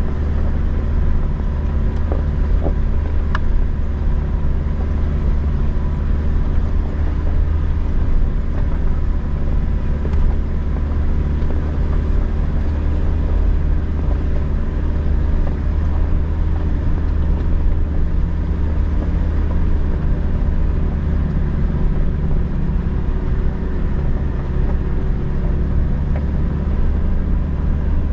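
Toyota Hilux driving: a steady engine running with a low rumble and no change in pace.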